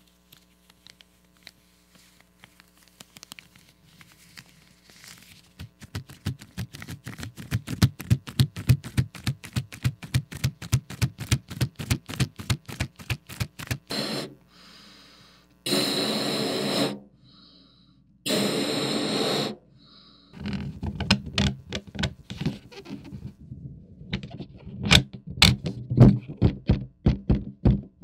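Red rubber balloon handled and inflated: a fast run of rubbing squeaks from the stretched rubber, then two bursts of rushing air, each a little over a second, as it fills, then more quick squeaks and knocks on the swelling balloon.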